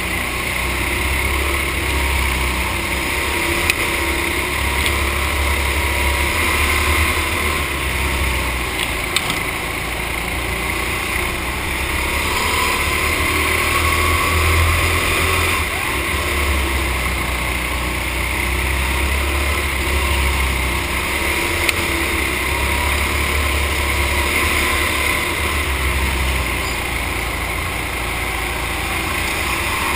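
Racing go-kart's small engine running hard around an indoor track, its pitch rising and falling, easing briefly several times as the kart takes corners, over constant rushing noise.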